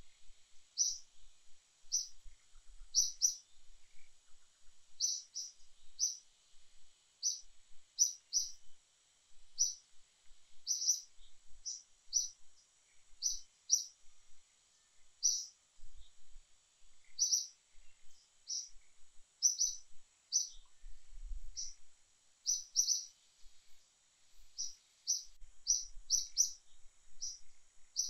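A bird chirping: short high chirps repeated irregularly, about once or twice a second and often in quick pairs, over a faint steady high hiss.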